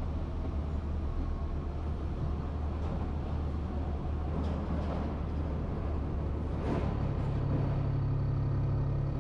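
Heavy truck's diesel engine running, heard from the cab as a steady low hum. About seven seconds in, the engine speed steps up and holds higher until near the end.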